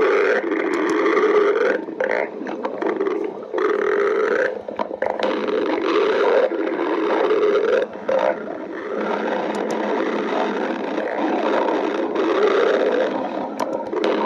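Stomach growling: long, loud rumbling gurgles, one after another with brief pauses between them.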